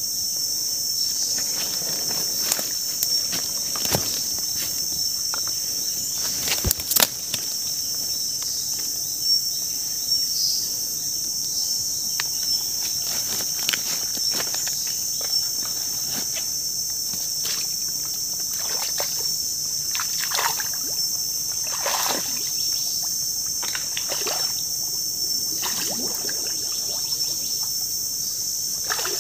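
Steady high-pitched chorus of insects, with irregular splashes and sloshing from footsteps wading through shallow swamp water.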